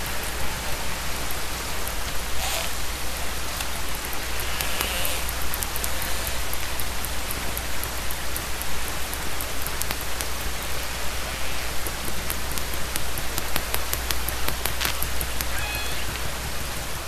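Steady rushing water noise, dense with small crackles and clicks, with faint brief high calls about five seconds in and again near the end.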